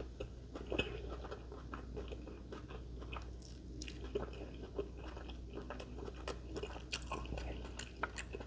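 A person chewing and biting a grinder-style sub sandwich close to the microphone, with many small irregular clicks and mouth noises over a faint steady low hum.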